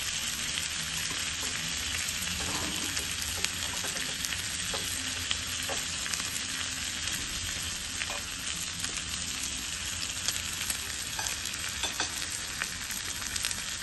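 Thin slices of meat sizzling in oil on a hot ridged grill plate: a steady frying hiss with scattered small pops.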